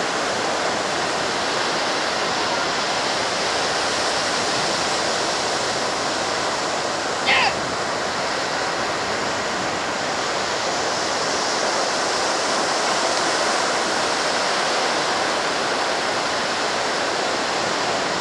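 Ocean surf breaking and washing up a sandy beach, a steady rushing noise, with one short high cry about seven seconds in.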